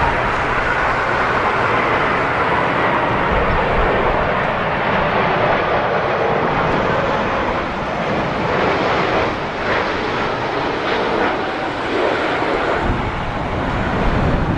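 Jet airliner engines running steadily as the plane passes on its landing approach.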